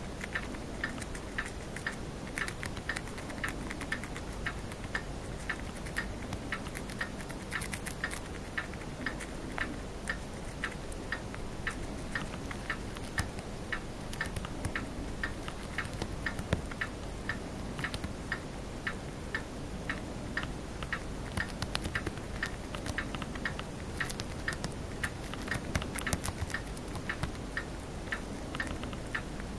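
Chinese dwarf hamster chewing a green leaf: a steady run of small, crisp clicks, a few per second.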